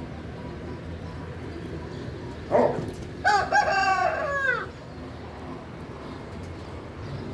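A rooster crows once: a short rising first note about two and a half seconds in, then a long held call that falls away at the end, about two seconds in all.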